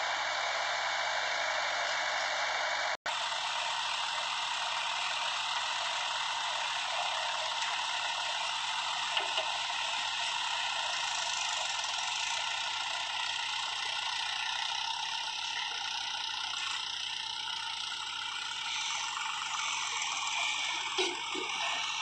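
A JCB 3DX backhoe loader's diesel engine and hydraulics run steadily under load as it digs and loads soil into a tractor trolley, with an idling tractor alongside. The sound cuts out for an instant about three seconds in.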